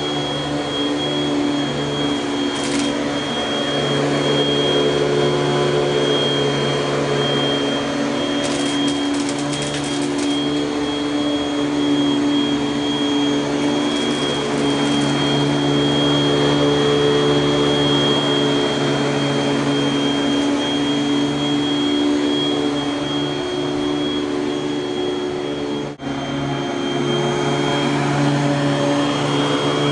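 1984 Panasonic Jet-Flo MC-5116 upright vacuum cleaner running steadily, its motor hum carrying a constant high whine. Short rattles come about three seconds in and again around nine to ten seconds, and the sound breaks off for an instant near the end.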